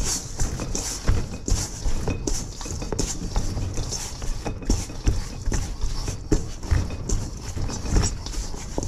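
Hands mixing and squeezing wet pizza dough: irregular soft thuds, a few a second, with sticky squelching between them.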